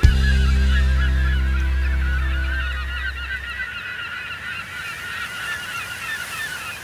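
A flock of birds calling: many short overlapping calls. Beneath them a low held tone fades out about three and a half seconds in.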